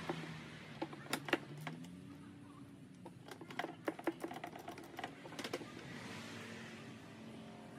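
Scattered clicks and knocks of hands handling the plastic air-filter housing and intake parts in a car engine bay, in short clusters about a second in, around the middle, and again a little later.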